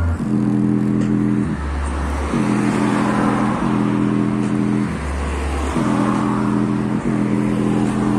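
JBL Charge 3 portable Bluetooth speaker playing a bass-heavy track loudly, its passive bass radiator working hard. Held buzzy notes alternate with a deep bass note that comes three times, about every three and a half seconds.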